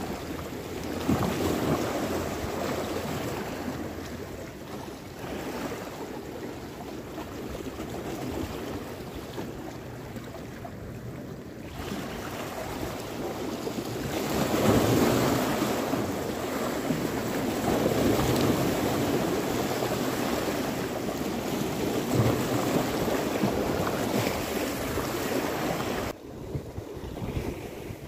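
Sea waves washing and breaking against rocky shoreline boulders, surging louder every few seconds, with wind buffeting the microphone.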